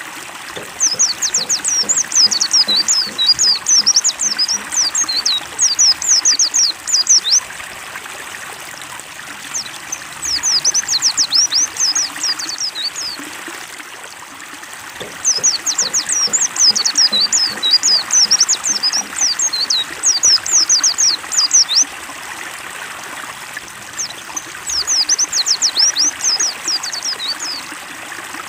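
Pleci (white-eye) singing in long phrases of rapid, high twittering notes, four phrases with short pauses between, over steady trickling water.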